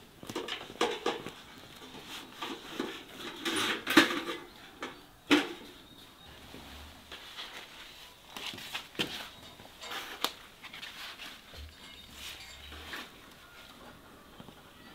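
Scattered light knocks, taps and rustles of someone moving about and handling flower pots, with a few louder knocks about four, five and ten seconds in.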